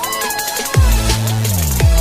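Electronic dance music with heavy bass, falling bass sweeps and synth lines.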